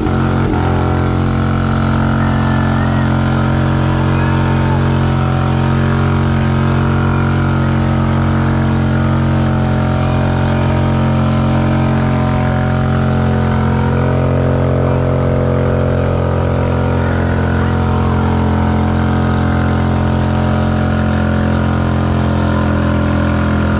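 Vehicle engine running hard during a burnout, held at one steady, unchanging pitch.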